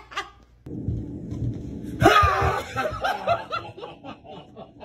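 A person laughing in bursts, loudest from about two seconds in and fading toward the end. Before the laughter, a low muffled rumble.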